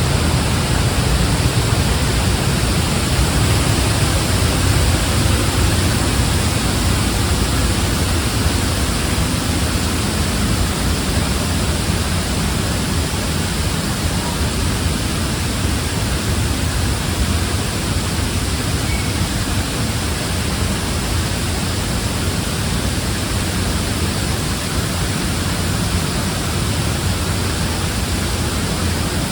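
Water falling over a sediment-control dam as a waterfall, heard up close from behind the curtain of falling water: a loud, steady, deep rush that does not let up.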